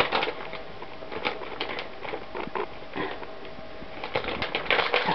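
Plastic cocoa-powder packet crinkling as it is handled and picked at with a knife to open it: irregular crackles and rustles, thickening about four seconds in.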